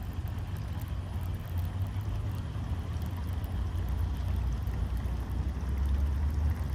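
Wind buffeting the microphone outdoors: a steady low rumble that grows a little stronger near the end.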